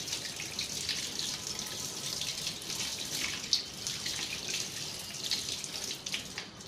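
Tap water running into a sink as peeled ginger and garlic are washed under it, splashing unevenly. The water stops just before the end.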